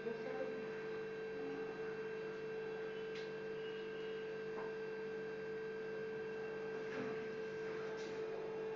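Steady electrical hum, one constant tone that does not change, with a few faint taps here and there.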